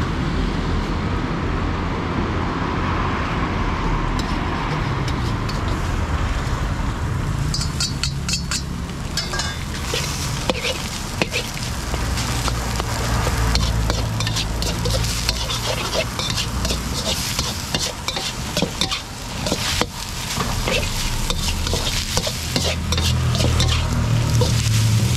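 Egg fried rice sizzling in a wok while a metal ladle stirs, scrapes and clanks against the pan. The scraping and clanking strokes come thick and fast from about eight seconds in.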